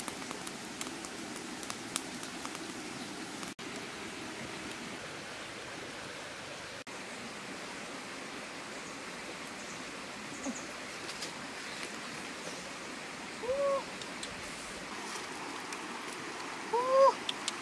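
Wood fire under a fish grilling on a stick rack, a steady hiss with scattered small crackles. Near the end come two short pitched calls that rise and fall, about three seconds apart.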